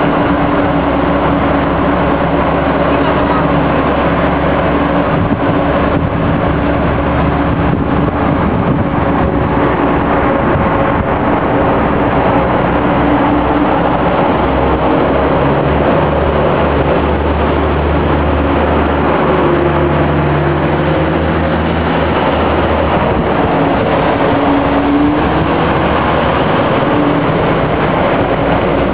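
Diesel multiple unit train's engine running steadily close by, its engine note shifting in pitch in the second half as the train moves off.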